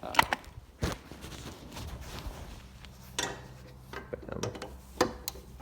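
Irregular metallic clinks and knocks of a wrench working on a lawn mower's blade bolt to loosen it, with the blade braced against a block of wood.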